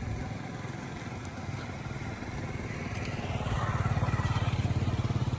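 A small engine running steadily with a rapid, even chug. It grows somewhat louder about three seconds in.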